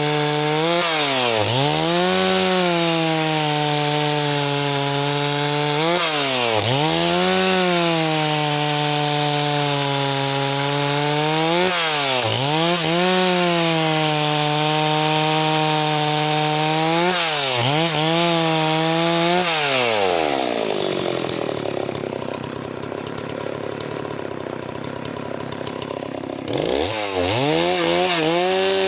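Stihl 038 two-stroke chainsaw running at high revs, the engine pitch dipping sharply and recovering about every five seconds. Near the end it drops to idle for about five seconds, then revs back up.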